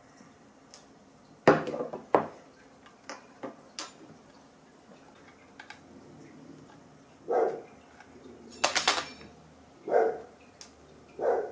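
A laptop hard disk's metal mounting caddy being handled and taken off the drive: scattered clicks and several sharp metallic knocks and clatters, the loudest about a second and a half in and a cluster near the nine-second mark.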